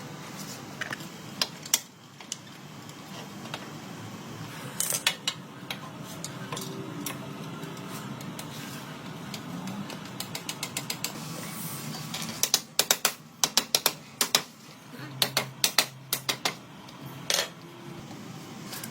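Sharp metallic clicks and taps of hand tools working on motorcycle parts. A few single clicks come first, then quick runs of several clicks from about twelve seconds in, over a steady low hum.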